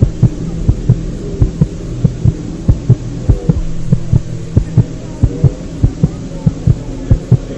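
Dark film-score sound design: a steady low droning hum with heavy, heartbeat-like thumps pulsing two to three times a second, often in pairs.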